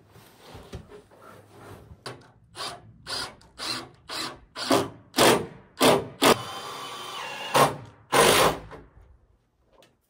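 Cordless drill working into a subfloor sheet on the loft's 2x6 floor joists: a run of short bursts, about two a second and growing louder, then a steady whine for about a second and a half, and one more short burst.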